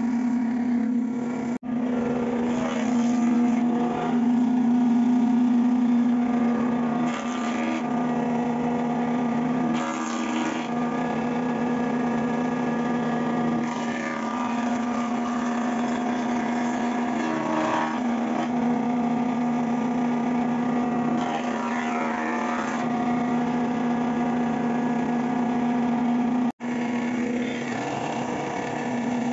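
Electric wood jointer-planer running with a steady motor hum, with a louder rasp every few seconds as its cutter head planes a board. The sound cuts out briefly twice, once near the start and once near the end.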